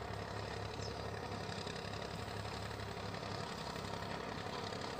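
Tractor engine running steadily as it pulls a plough through the field, a constant low hum.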